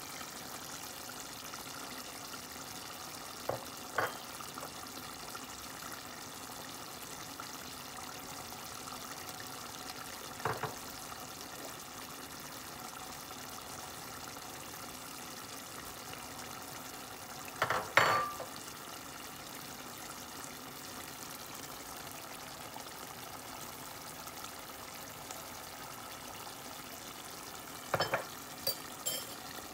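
Meat curry simmering in a pan, a steady gentle bubbling sizzle, broken by a few short sharp clinks, the loudest about eighteen seconds in.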